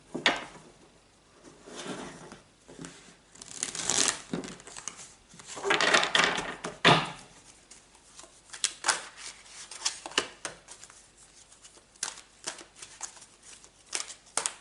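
Tarot cards being handled: a few papery swishes of cards sliding and shuffling, then from about halfway on a run of light clicks and taps as cards are flipped and laid down.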